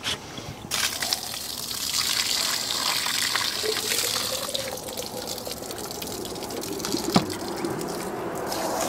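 Water pouring out of an upturned water-softener filter housing onto grass, starting about a second in and running steadily. A single sharp knock comes near the end.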